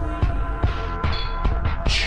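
Instrumental hip-hop beat: a drum kit with bass drum hits under sustained synth tones, and a rising swoosh near the end.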